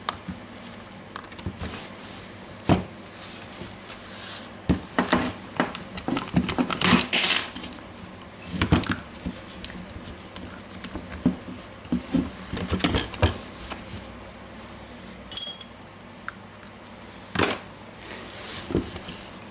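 Hands taking apart a DeWalt DCH273 cordless rotary hammer: irregular clicks, knocks and clinks of its plastic housing and metal parts against a wooden tabletop, busiest in the first two-thirds, with one short metallic ring about three-quarters of the way through.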